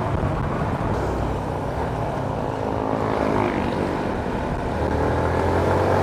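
Yamaha Sniper 150's single-cylinder four-stroke engine running under way. Its note falls as the bike eases off and rises again a little past halfway as it accelerates.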